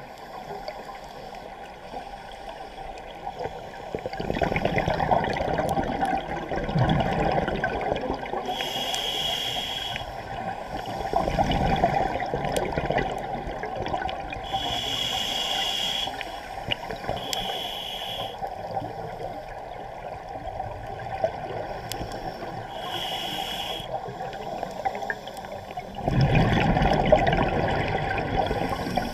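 Scuba diver breathing through a regulator underwater: short hissing inhalations with a thin whistle alternate with long bubbling bursts of exhaled air, the loudest exhalation near the end.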